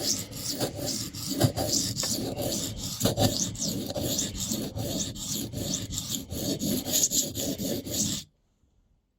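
Leatherman Rebar's 420HC steel blade being stroked rapidly back and forth across a 400-grit sharpening stone, a rhythmic gritty scraping: regrinding a new convex edge. The strokes stop suddenly about eight seconds in.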